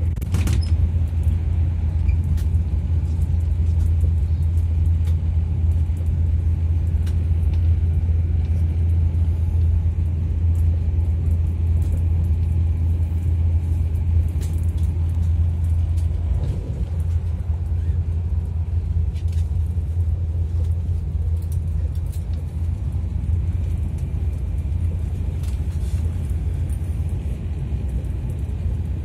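Steady low rumble of a passenger train running at speed, heard inside the carriage, with faint scattered clicks.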